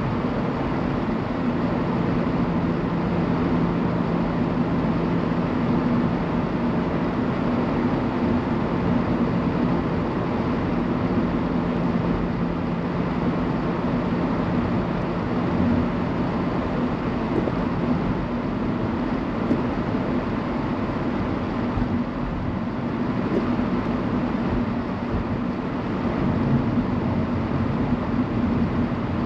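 Steady road and engine noise inside a moving car's cabin, with a low, even engine hum under the tyre rumble.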